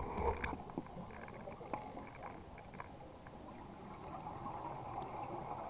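Faint underwater ambience heard through a dive camera: a low, steady rushing with a few faint clicks.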